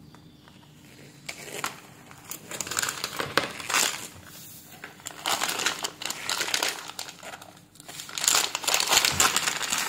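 Clear plastic zip-lock bag crinkling as it is handled and opened. Irregular rustling starts about a second in and comes in uneven clusters.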